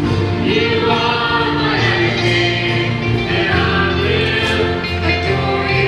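Choral music: several voices singing long held notes over an accompaniment.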